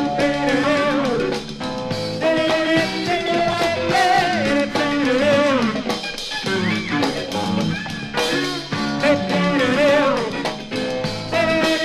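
Recorded music: a band passage from a 1970s song, a wavering lead melody over guitar and drums.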